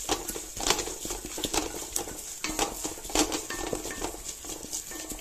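A metal spoon stirring and scraping thick spice masala around a metal pan, in quick irregular scrapes and clinks. The masala of chilli powder, garlic, ginger and green chillies is being sautéed in oil until cooked.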